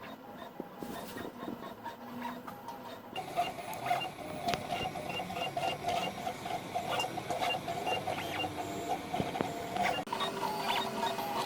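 3D printer's stepper motors whirring and buzzing as the print head moves, the pitch shifting with each move, over rapid light ticking. The sound changes abruptly about three seconds in and again near the end.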